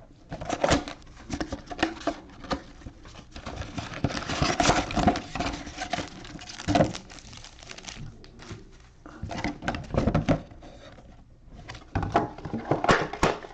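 Crinkling and rustling of foil-wrapped trading card packs and cardboard mega boxes being handled, with many small taps and clicks in irregular flurries.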